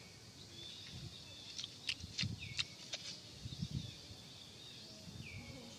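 Forest ambience: a steady high insect-like hum, with a quick run of short, sharp high chirps a couple of seconds in and a falling call near the end.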